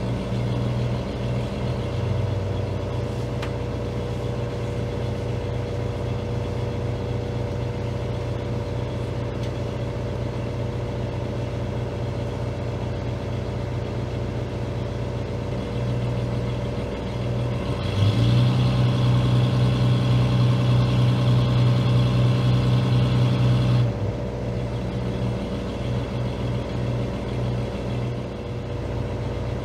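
Fishing boat's engine running slowly while the boat is maneuvered in to park, with a steady hum; about eighteen seconds in it is throttled up and held louder for around six seconds, then eased back.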